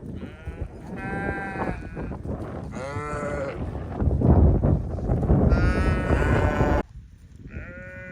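Sheep bleating, about four separate calls over several seconds. A loud low rumbling noise runs under the calls in the second half and cuts off abruptly near the end.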